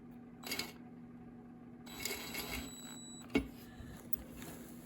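Light metallic clinking and rattling of a small bolt and hand tools against a chainsaw muffler as the bolt is worked into place, with a brief thin ringing about two seconds in and a sharp click a little later.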